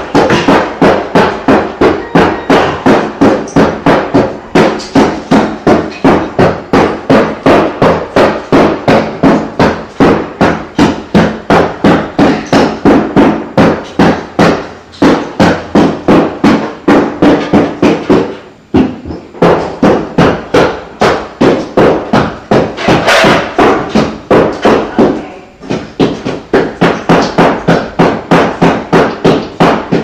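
A hammer striking over and over in a fast, even rhythm, about three to four blows a second, with a few short breaks.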